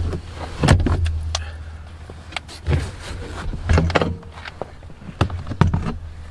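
Several thumps and knocks, about five, with handling rustle as a pickup truck's rear bench seat backrest is lifted off its wall catches and manoeuvred out of the cab through the rear door.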